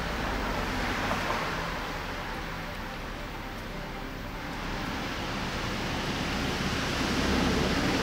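Outdoor traffic ambience: road vehicles passing, swelling and fading twice over a steady hiss, about a second in and again near the end with a deeper rumble.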